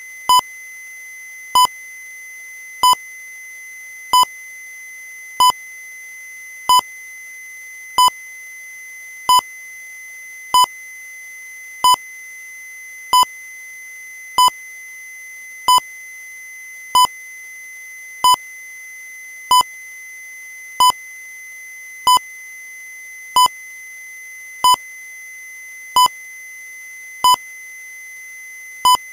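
Short electronic beep repeating evenly about every 1.3 seconds, 23 times, over a steady high-pitched tone.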